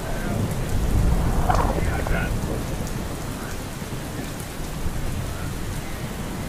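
Steady rain falling, with a low roll of thunder that swells over the first second or so and then slowly fades.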